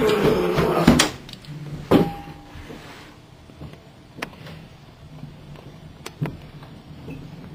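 A door being handled, with thumps and clicks: sharp knocks about a second apart over the first two seconds with rustling, then a quieter stretch broken by a few faint clicks.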